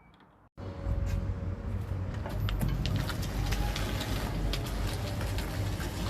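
Wind rushing over the microphone with a heavy low rumble and scattered clicks, typical of riding on an electric-converted Vespa scooter, with no engine note. It starts abruptly about half a second in, after a faint beep.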